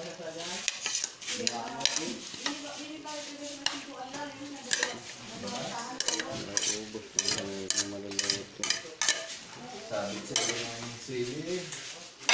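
Sliced carrots and cabbage are pushed off a plate with a utensil into a hot pan of frying meat, sizzling, with repeated clinks and scrapes of the utensil on plate and pan. Voices can be heard in the background.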